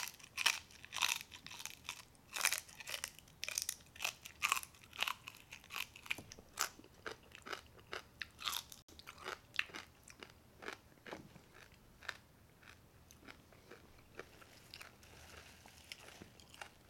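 Close-miked crunching and chewing of crispy deep-fried chicharrones (pork rind with meat attached): a run of sharp, crisp crunches, thick and loud at first, then thinning out and growing softer.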